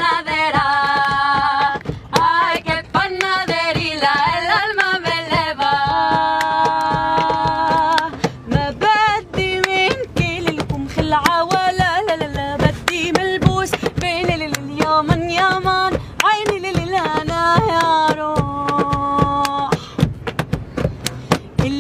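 A woman singing an Arabic folk song in long, wavering held notes, with sharp percussive hits keeping the beat.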